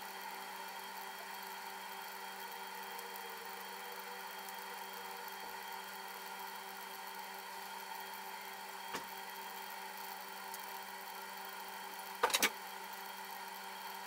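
Roasting coffee beans cracking inside a toaster oven: one sharp snap about nine seconds in and a louder quick run of about three snaps near the end, over a steady hum.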